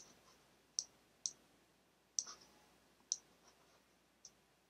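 Faint, short, sharp clicks of a computer pointer button, six at uneven intervals, as shapes are selected and dragged in a drawing program.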